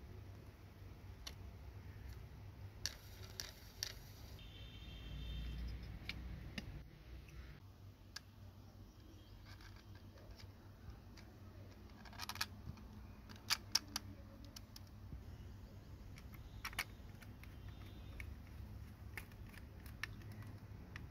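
Small scattered clicks and taps of plastic model-car parts being handled and snapped together as a wheel goes onto its axle and the chassis is fitted to the body, with a sharper cluster of clicks about halfway through.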